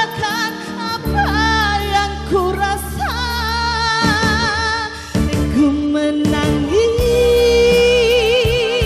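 Song with a singer holding long, wavering notes over steady keyboard and bass chords, ending on a long high held note.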